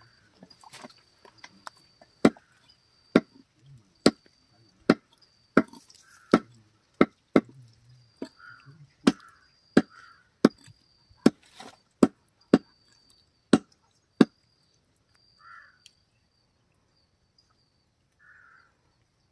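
A heavy curved butcher's knife chopping chicken offal on a wooden chopping block: a steady run of sharp chops, about three every two seconds, that stops about 14 seconds in. Crows caw a few times, mostly near the end.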